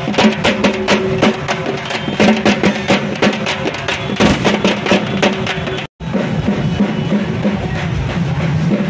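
Music with fast, loud drum beats over a steady tone. It cuts out completely for a moment about six seconds in, then comes back fuller, with the drum strokes less distinct.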